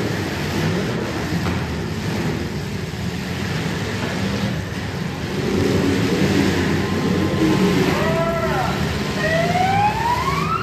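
Demolition derby cars' engines running and revving in the pit. Near the end a pitched whine rises and falls once, then climbs steeply.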